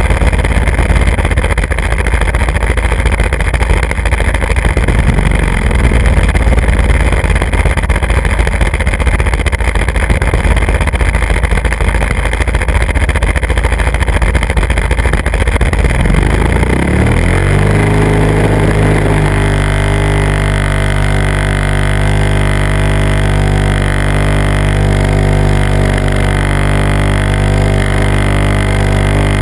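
Model aircraft running under power. For the first half or more there is a rough rumbling noise as it rolls over pavement; then the rumble drops away, a motor pitch rises quickly and holds as one steady drone with the aircraft airborne.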